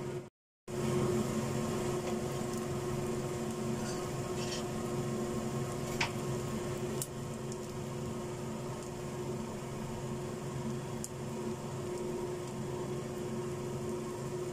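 Steady appliance hum from the stove with a pancake frying gently in oil in the pan; a couple of faint clicks midway as toppings are laid on. The sound cuts out for a moment just after the start.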